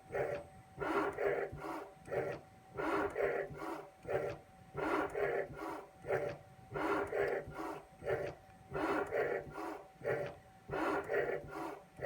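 Small CNC machine making repeated cutting passes along a flat flex cable, its motors sounding in short bursts of a few pulses about every two seconds over a faint steady tone. The passes shave the remaining plastic coating off the thin copper conductors.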